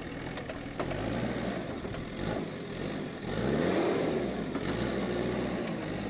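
JCB 3DX Super backhoe loader's diesel engine running under hydraulic load as the front loader bucket is raised. The revs climb sharply about three seconds in, then settle at a louder, busier pitch.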